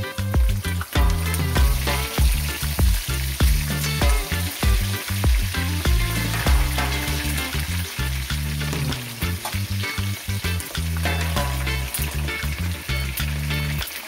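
Large whole parrotfish and snapper frying in hot oil in a skillet, sizzling steadily with many sharp pops and crackles from spitting oil and allspice seeds. Background music with a bass line plays underneath.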